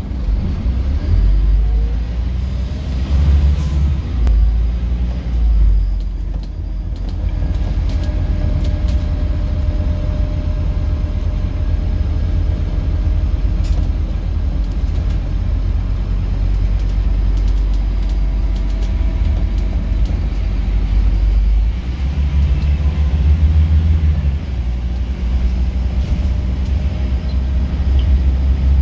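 Scania OmniCity single-deck bus's rear-mounted diesel engine heard from inside the saloon while under way, a steady low drone whose note changes a few times. A short hiss about three seconds in.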